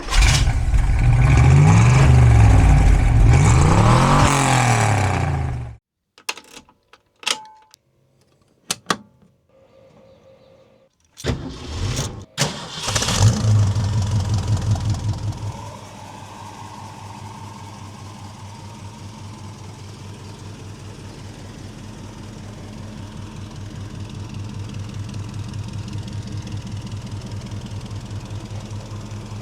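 1965 Ford Mustang GT's 289 V8 with four-barrel carburettor revving up and down hard, cut off suddenly about six seconds in. After a few sharp clicks the engine is cranked and starts, revs briefly, and settles into a steady idle for the rest of the time.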